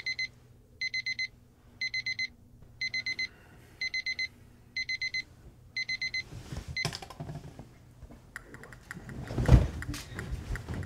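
Electronic alarm clock beeping in quick bursts of four high beeps, about once a second, until it is cut off about six seconds in. Then bedding rustles and there is a heavy thump a little after nine seconds in.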